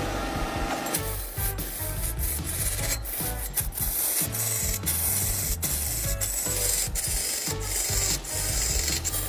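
Steel turning tool cutting into a large log spinning on a wood lathe: a continuous rasping scrape with frequent sharp ticks as chips tear off, over a low steady hum.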